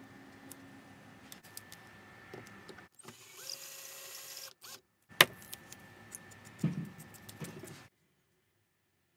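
Cordless drill running for about a second and a half as it bores through a steel square tube held in a drilling jig. It is followed by one sharp, loud knock and some clatter.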